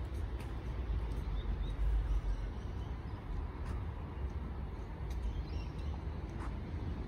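Outdoor ambience: a steady low rumble with a few faint, short bird chirps about a second and a half in.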